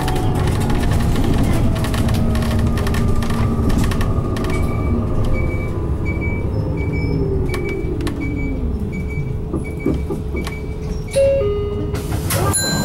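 Cabin running sound of an Isuzu Erga Hybrid city bus (diesel engine with an electric assist motor): a drivetrain whine falls steadily in pitch over about nine seconds as the bus slows. From about five seconds in a short high beep repeats about twice a second, and there is a sharp knock near the end.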